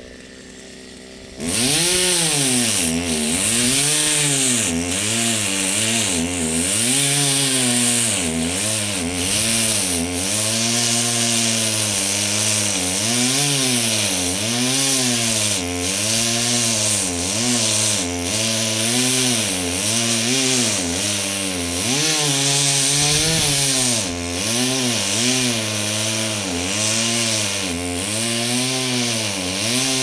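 Two-stroke chainsaw starting up about a second and a half in, then revving up and down again and again as it cuts brush and small volunteer trees.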